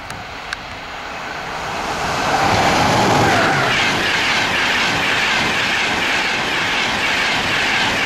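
Class 91-hauled InterCity 225 express passing at speed. The rush of wheels on rail and air builds over the first two seconds, with a short falling tone about three seconds in. It then settles into a steady loud rushing hiss as the coaches go by.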